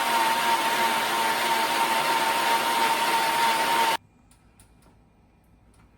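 Electric blender running steadily at high speed with a constant motor whine, blending strawberries and liquid into juice. It is switched off about four seconds in and stops abruptly, followed by a few faint clicks.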